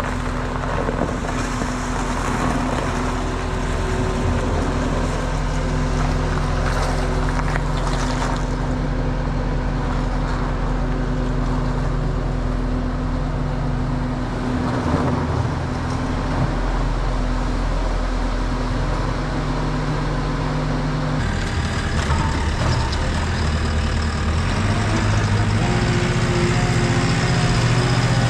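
Truck engine running steadily. About 21 seconds in its note changes, and it grows louder toward the end.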